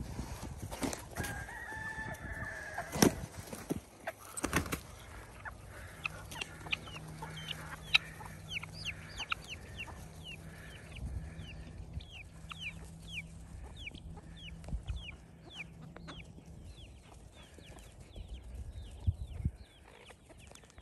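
Gamefowl chickens clucking, with a rooster crowing once about a second in and two sharp knocks a few seconds later. Then a long run of short, high, falling chirps, about two a second.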